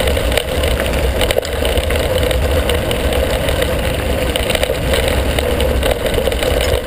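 Wind buffeting a handlebar-mounted action camera's microphone on a moving mountain bike, over the steady noise of knobby tyres on a gravel track, with scattered clicks and rattles as the bike jolts over stones.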